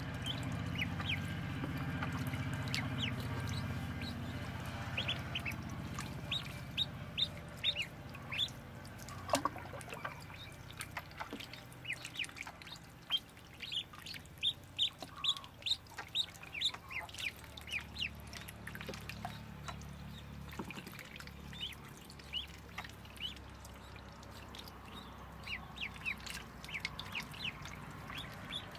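A brood of ducklings peeping: many short, high-pitched peeps in quick runs, thickest from about six seconds in. A low steady rumble sits under the first few seconds.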